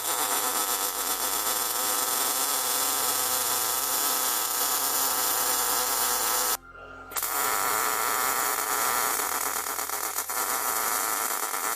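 Welding arc running with a steady crackling hiss as the inset handle is full-welded to the steel tool box. It stops for half a second about two-thirds of the way through, then strikes again for a second bead.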